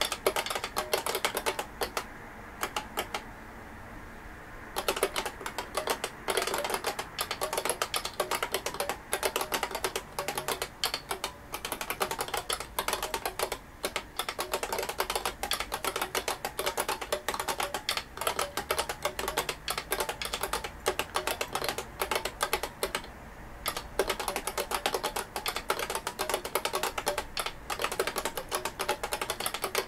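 IBM 5251 beam spring keyboard being typed on quickly and steadily, a fast run of key clicks. There is a pause of about two and a half seconds about two seconds in, and a short break about 23 seconds in.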